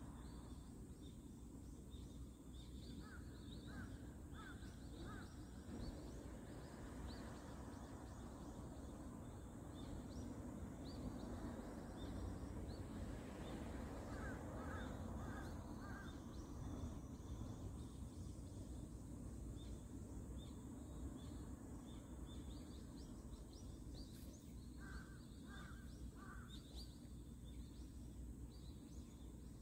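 Outdoor ambience: a bird calling in short series of three or four notes, heard three times, over a steady low rumble and scattered high chirping.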